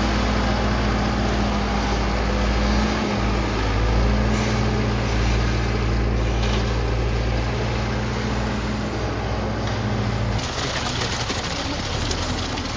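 Diesel engine of a Schwing Stetter SLM 600 self-loading concrete mixer running steadily with a low hum; the sound changes abruptly about ten seconds in.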